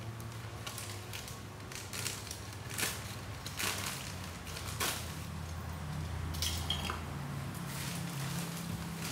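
Plastic sack crinkling and rustling in irregular bursts as it is cut open at the top and then lifted and handled, over a low steady hum.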